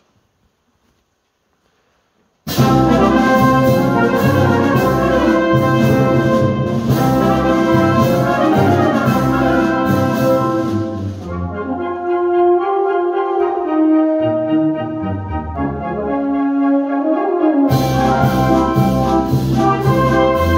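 Military wind band playing a pasodoble. After a couple of seconds of near silence, the full band comes in all at once, with brass to the fore over a steady percussion beat. About halfway through, the percussion drops out for a softer melodic passage, and the full band with percussion returns near the end.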